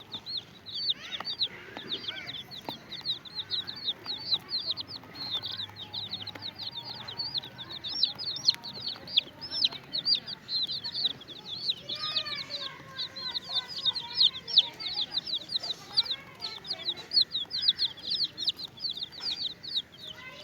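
A brood of domestic chicks peeping non-stop: short, high-pitched peeps that drop in pitch, several a second. Lower calls from a hen join them about halfway through.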